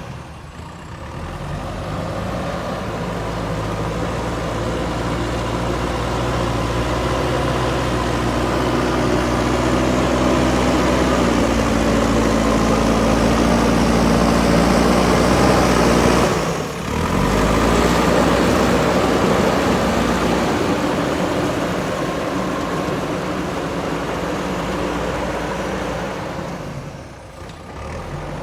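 Diesel engine of a JCB 3DX backhoe loader running under working load. Its pitch climbs over several seconds toward the middle, dips sharply for a moment, then holds steady and eases off near the end.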